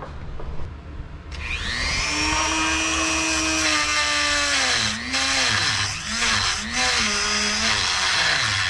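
Dremel rotary tool with a diamond cutting wheel spinning up to a high steady whine about a second in. It is then pressed into the metal, and its pitch sags and recovers repeatedly as it grinds.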